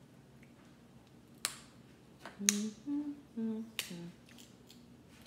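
Boiled shellfish shells snapping as they are cracked and peeled by hand: three sharp cracks, the loudest near the middle, with a woman humming a few short notes between them.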